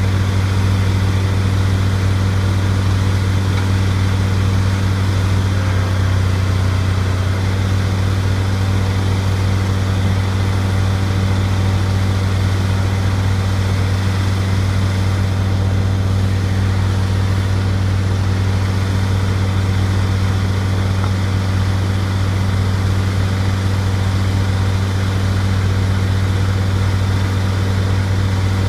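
Bobcat skid steer loader's engine running steadily at an even speed, a constant low hum with no revving.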